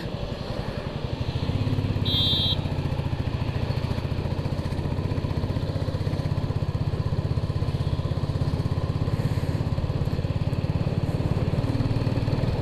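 Motorcycle engine running steadily while riding along in traffic, growing a little louder about a second and a half in. A brief high-pitched beep sounds about two seconds in.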